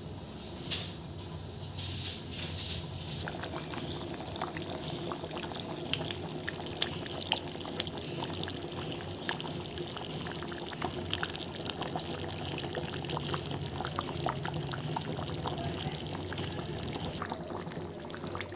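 Chicken curry gravy boiling in a pan after water has been added, a steady bubbling with many small irregular pops as bubbles break.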